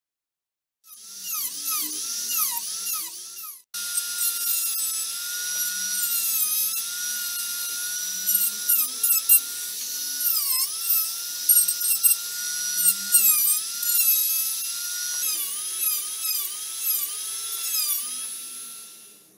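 A Dremel rotary tool with a small cut-off disc whines at high speed. Its pitch dips each time the disc bites into the algarrobo wood to cut and scorch short stripes, then recovers as it lifts off. It starts about a second in, breaks briefly near four seconds, and fades out at the end.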